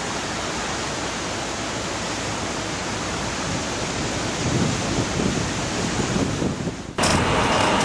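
Wind blowing across the microphone: a steady rushing noise that cuts off abruptly about seven seconds in.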